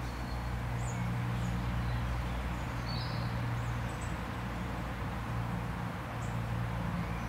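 Outdoor ambience: a steady low hum with a few short, high bird chirps scattered over it.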